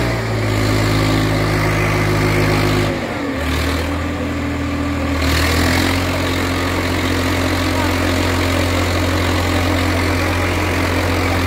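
Swaraj 855 tractor's three-cylinder diesel engine running steadily while the tractor balances on its rear wheels in a wheelie stunt. The engine note drops a little about three seconds in and then holds steady.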